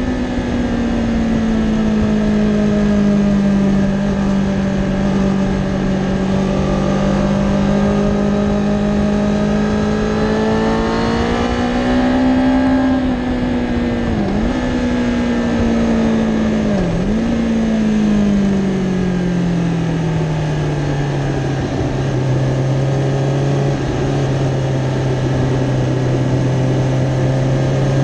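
Kawasaki Ninja ZX-10R inline-four engine pulling at speed on track, heard from on the bike. Its pitch wavers, dips sharply twice around halfway as the rider changes down from fourth to second, then falls and holds lower before starting to rise near the end.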